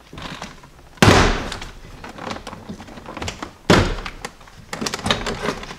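Plastic Christmas tree clips of a Jeep Cherokee XJ door trim panel popping loose as the panel is pulled off by hand: two sharp thunks, about a second in and near four seconds in, then lighter plastic clicks and rattles.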